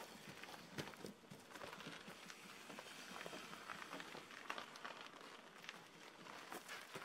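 Faint crunching footsteps on gravel as a heavy motorcycle is pushed by hand, its tyres rolling over the stones, with scattered small clicks and crackles.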